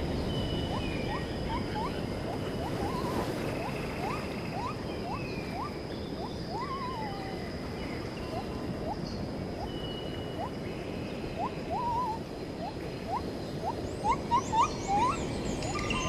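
Birds calling: many short rising whistled notes and a few warbling ones, with higher chirps, over a steady high whine and a constant rushing hiss. Several louder calls come near the end.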